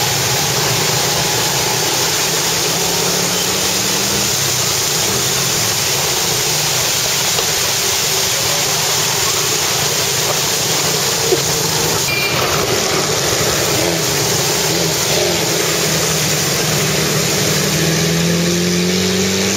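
Motorbike ridden through water covering the road: its engine running under a steady rush of spray and wind noise, with an engine rising in pitch over the last few seconds.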